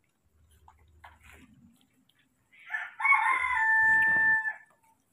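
A rooster crowing once, starting about two and a half seconds in and ending in a long held note.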